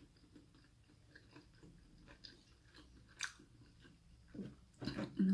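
Close-miked chewing and soft mouth sounds from eating, with scattered small clicks, a sharper click about three seconds in, and louder mouth sounds near the end.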